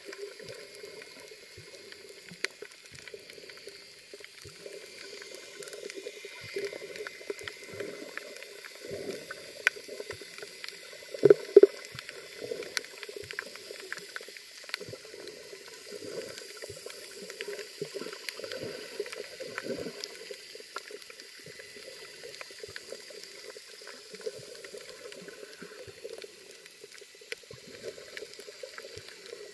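Muffled underwater water noise heard by a camera held beneath the surface, with a steady gurgling murmur and scattered sharp clicks throughout. A louder gurgle comes about eleven seconds in.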